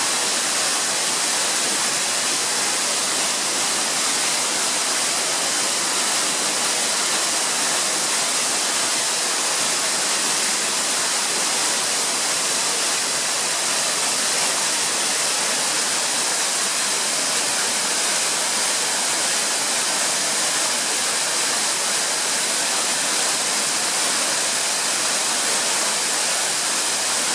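Waterfall running, a steady hissing rush of falling and splashing water that does not change.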